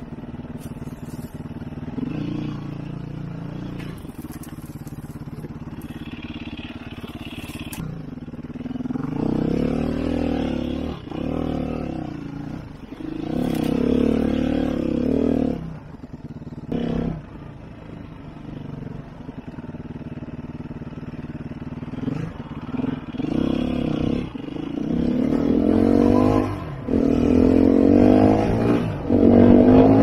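2011 Sherco 3.0i F enduro motorcycle's four-stroke engine being ridden, rising and falling in pitch in repeated surges as the throttle is opened and closed. A few short knocks and clicks are heard along the way.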